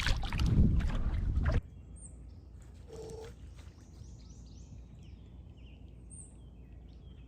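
Wind rumbling on the microphone with a few knocks and clicks, cutting off abruptly about a second and a half in. Then quiet outdoor background with a few faint, short bird chirps.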